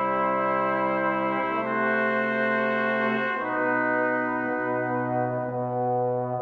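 Instrumental background music: sustained chords, each held for a second or two before moving to the next.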